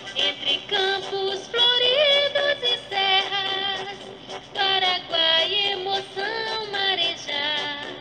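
A Brazilian municipal anthem sung in Portuguese over music, in long held, sweeping notes.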